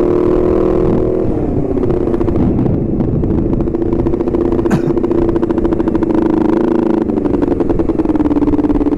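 Honda CBR250RR parallel-twin engine running under way, dropping in pitch about a second in, then holding a steady note. A brief click comes about halfway through, and the engine note dips and starts to climb again near the end.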